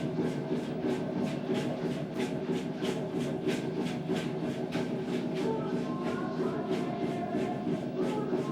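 Aztec dance accompaniment: a steady percussion beat of sharp strokes, about two to three a second, over a continuous droning tone, with a higher held tone coming in about two-thirds of the way through.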